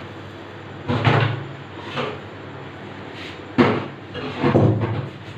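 A few dull knocks and clunks of things being handled in a kitchen, spaced roughly a second apart, over a low steady hum.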